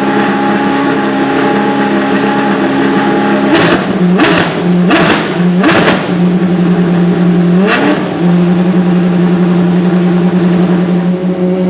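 Dallara GP2 race car's Mecachrome V8 idling, blipped four times in quick succession about four seconds in, then settling back to a steady idle.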